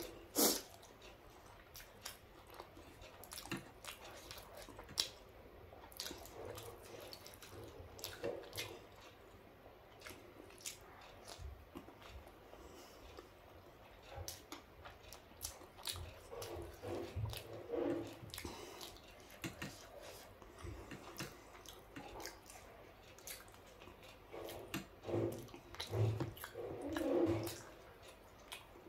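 Close-miked chewing of soft idli soaked in sambhar, with many small wet mouth clicks and smacks.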